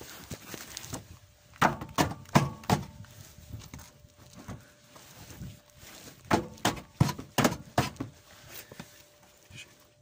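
Boot kicks against the steel spare-wheel carrier bar under a VW T5 Transporter: two bursts of sharp knocks, about four about a second and a half in and about five more near the middle. The bar is being knocked sideways to release the slung spare wheel and is stuck.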